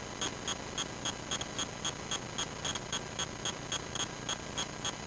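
Steady, rapid ticking, about three or four ticks a second, over a faint low hum in a light aircraft's cockpit audio.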